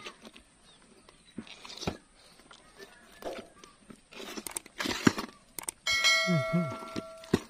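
Scattered knocks and rustles as fish are handled in a plastic cooler. About six seconds in, a bell-like chime sound effect rings out suddenly and fades over about a second and a half.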